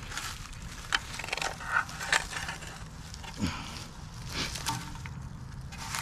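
Gloved hands breaking apart clods of freshly dug clay soil: crumbling and scraping, with several short sharp crunches spread irregularly.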